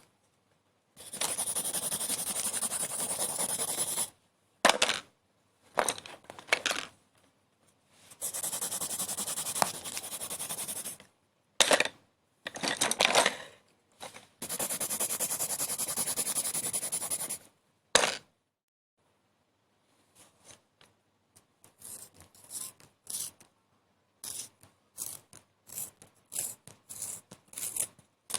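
Scraping and rubbing noises: three long rasping passes of about three seconds each, with short sharp clicks between them, then a run of short quick scratches in the last third.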